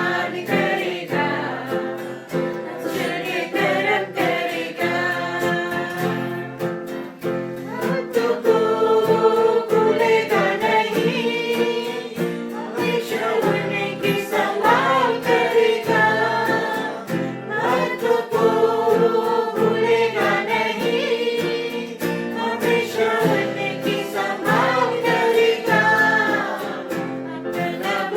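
Several voices singing a Hindi Christian worship song with instrumental accompaniment.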